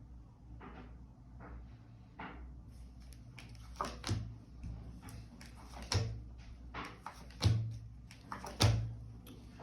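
Tarot cards being laid down on a table: a series of short light knocks and slaps, a few faint ones at first and sharper ones from about halfway, the loudest near the end.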